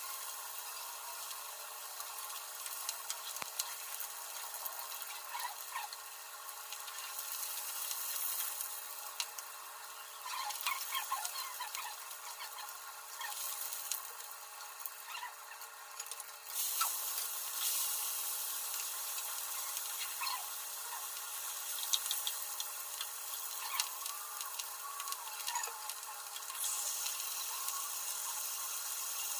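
Fish steaks frying in hot oil in a nonstick pan: a steady sizzle with occasional small pops, growing louder a little past halfway.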